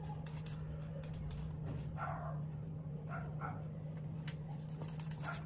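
Kitchen knife slicing salmon on a wooden cutting board, with short sharp knocks of the blade against the board, over a steady low hum. A dog whimpers briefly a few times, about two seconds in and again a second later.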